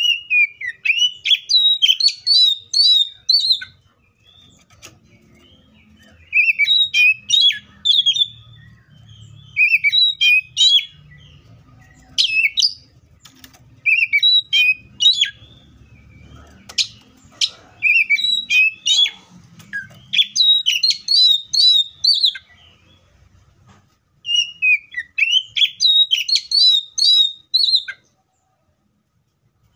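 Oriental magpie-robin singing: loud phrases of quick, sweeping whistled and chattering notes, given in about eight bursts of one to four seconds with short pauses between them.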